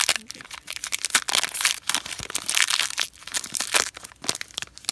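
Shiny Pokémon trading card booster pack wrapper crinkling and tearing as it is ripped open by hand: a dense, irregular run of crackles.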